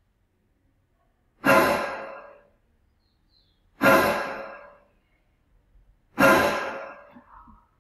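Three loud breathy sighs, each starting sharply and fading over about a second, spaced about two and a half seconds apart.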